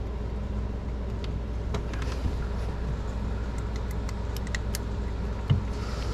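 Faint small metallic clicks and ticks as a wrist-pin circlip is worked into its groove in a two-stroke piston, over a steady low hum. A short dull knock comes about five and a half seconds in.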